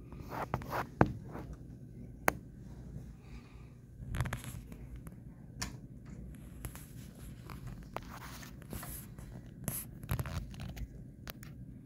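Handling and rustling noise with scattered sharp clicks and taps, the loudest two about one and two seconds in, then short bursts of rustling.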